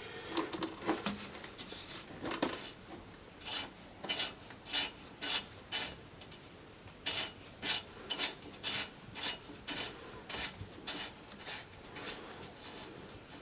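Plastic nut being turned by hand onto the plastic threads of a toilet fill valve: a few irregular scrapes, then from about three seconds in a steady run of short strokes of plastic rubbing on plastic, about two a second.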